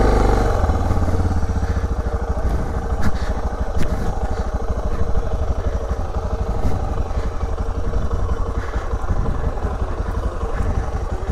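Off-road motorcycle engine running at a low, steady throttle while the bike picks its way through brush, easing off from a rev in the first moment. A few sharp knocks and clatter break through now and then.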